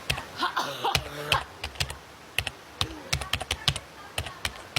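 Rapid, irregular clicks, several a second, with a brief breathy vocal sound about a second in.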